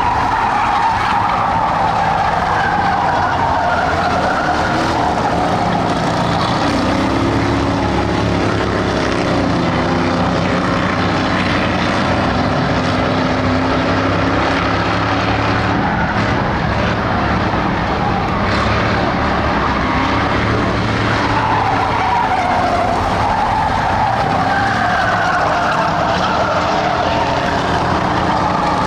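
A pack of Ford Crown Victoria dirt-track race cars at racing speed, several 4.6-litre V8 engines running at once, loud and continuous. Engine pitch rises and falls over and over as the cars come past and go through the turns.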